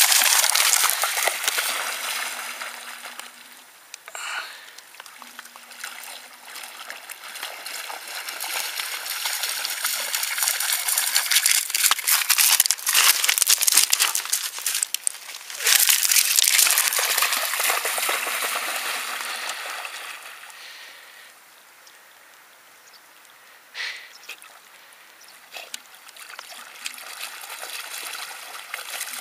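A dog running and wading through shallow river water over pebbles, its splashing coming and going in spells, loudest in a few stretches and dying down for a while near the end.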